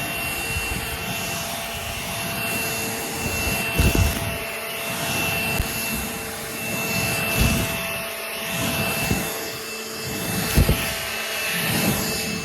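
An engine running steadily with a slowly rising and falling level, and a few dull thumps about four, seven and ten seconds in.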